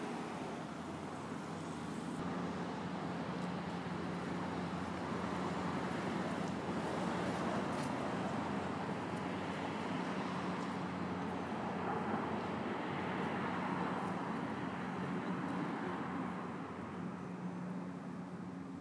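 Distant road traffic: a steady wash of noise with a low hum, swelling gently through the middle and easing off near the end.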